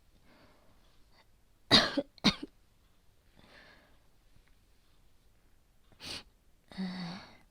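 A young woman coughing, acted as a girl sick with a high fever: a sharp double cough about two seconds in, quiet breaths, then a short cough and a longer cough with some voice in it near the end.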